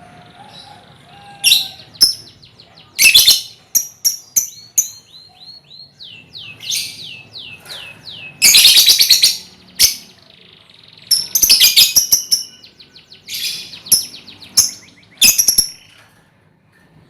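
A colony of young lovebirds chirping and chattering: loud, shrill bursts of calls, with runs of quick, repeated falling chirps between them.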